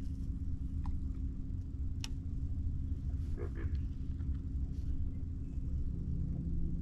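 A small motor's steady low hum and rumble, with a few faint clicks and taps.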